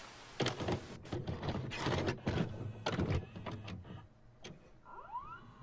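A VCR's mechanism loading a videocassette: a run of clunks and clicks over a low hum, then a short rising whine near the end as the tape starts to play.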